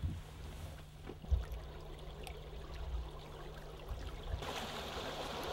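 Small stream's water running, louder from about four and a half seconds in, with a few low bumps in the first part.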